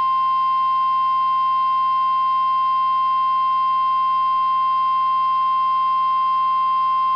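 NOAA Weather Radio warning alarm tone: a single steady high-pitched tone of about 1050 Hz, held unbroken at constant level, signalling that a warning broadcast follows, here a severe thunderstorm warning.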